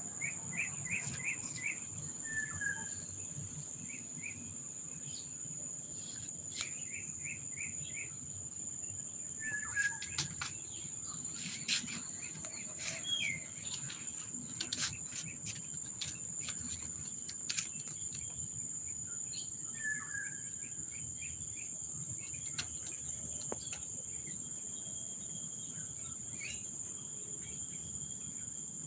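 Insects keep up a steady high-pitched drone while birds chirp in short quick runs. One bird gives a short call three times, several seconds apart. Scattered faint clicks sound through it.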